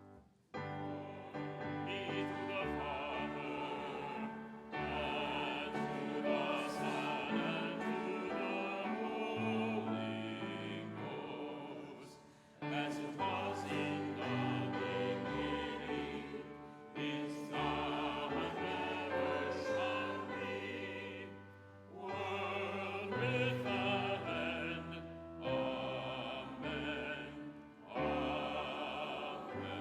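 Choir and congregation singing a slow hymn with keyboard accompaniment, in sustained phrases with short breaks for breath between them.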